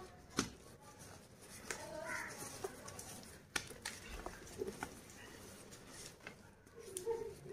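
Dyed gym chalk bars being crushed and crumbled by hand: soft powdery crumbling with a handful of sharp, crisp cracks as pieces snap.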